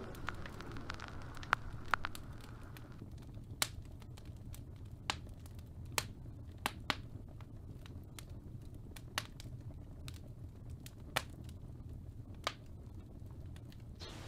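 Faint vinyl-record crackle: a soft low hum with scattered sharp pops and clicks, a little under one a second, and no music over it.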